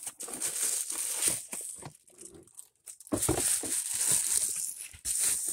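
Cardboard shipping box being opened by hand, its flaps and contents rustling and scraping in two stretches with a pause of about a second in the middle.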